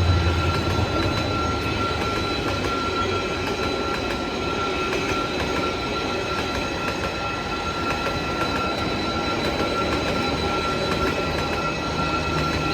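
A train rolling past on the track: steady wheel-and-rail noise with a thin, steady high tone held throughout. A deeper rumble fades away over the first few seconds.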